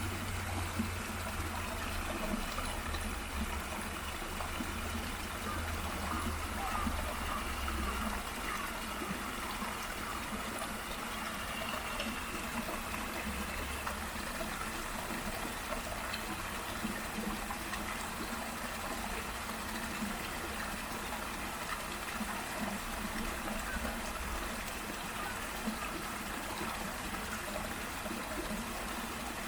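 Small waterfall and stream running, a steady, even rush of water. A low rumble underlies it for the first several seconds.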